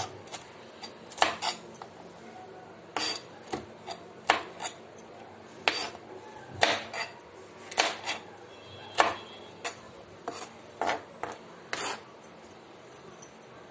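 Chef's knife chopping green bell pepper on a plastic cutting board: sharp, irregular knocks of the blade against the board, about one or two a second, stopping near the end.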